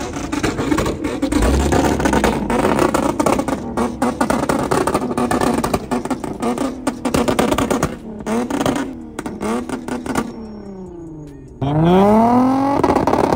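Car engines running and revving, with sharp crackles in the exhaust noise. The revs fall away about ten seconds in. Then one engine revs up suddenly and loudly, its pitch climbing steeply, and drops again near the end.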